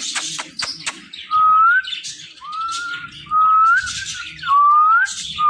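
Ringneck parrot whistling: a series of about five loud short whistles, each rising in pitch, after a few sharp clicks at the start.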